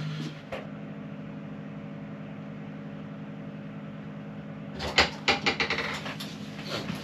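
A steady motor hum with a few fixed low tones. About five seconds in, a quick string of clicks and knocks clatters over it for a second or two.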